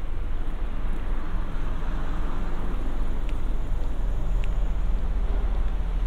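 Road traffic on a city street: a steady rumble of vehicle engines and tyres, swelling slightly about two seconds in, with a steady engine hum coming in near the end.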